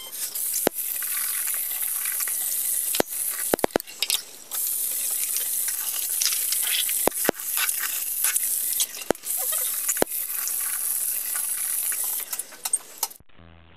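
Bathroom tap running steadily into the sink, a loud even hiss, with a few sharp clicks scattered through it; it cuts off abruptly near the end.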